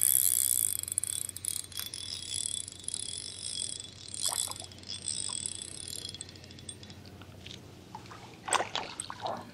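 Fishing reel being cranked to bring in a hooked crappie, its gears whirring in short stop-and-start spurts, followed near the end by a few brief knocks.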